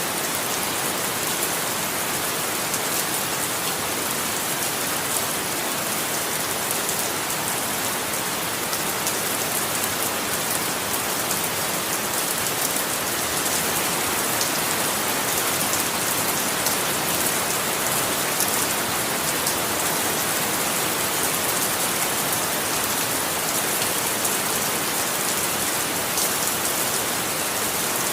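Steady rain falling on a surface, an even hiss with fine drop patter and no change in strength.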